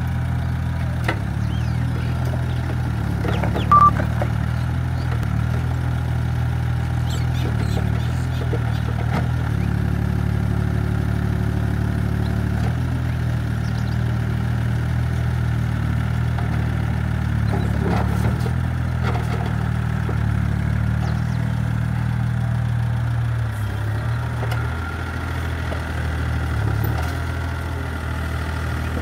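Hitachi EX30 mini excavator's diesel engine running steadily under hydraulic load as the machine levers itself onto a truck bed, its note shifting a couple of times as the hydraulics are worked. A short high beep sounds about four seconds in, and there are occasional knocks.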